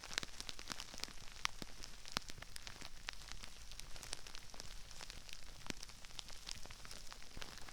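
Crispy rice pieces raining down around a binaural microphone, a dense, irregular patter of small crackles and pops.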